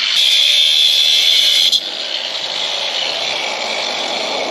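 A power tool cutting through a steel 3/8-inch-drive socket extension to shorten it. There is a harsh, loud hiss for about the first second and a half, then it drops to a lower, steady running sound.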